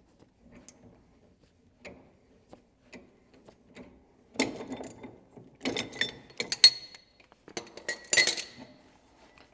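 Faint metallic ticks as a three-jaw gear puller's screw is turned against a front brake drum, then from about four seconds in a run of loud metallic clanks and ringing clinks as the drum comes free and the puller and drum are handled.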